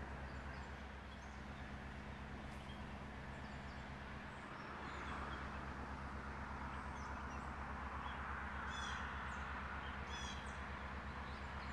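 Birds calling outdoors, with a few harsh, crow-like calls about nine and ten seconds in, over a steady low hum and a broad rushing noise that swells in the second half.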